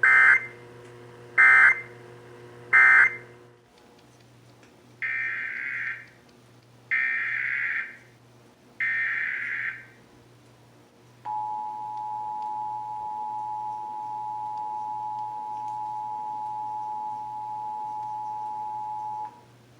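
Emergency Alert System data tones: three short screeching data bursts (the end-of-message code), then three longer data bursts (the next test's header), then the steady two-tone EAS attention signal of 853 and 960 Hz held for about eight seconds.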